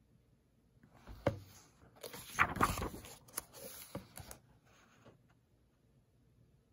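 Paper pages of a book being turned by hand: a single tap about a second in, then paper rustling with a few clicks for about two seconds.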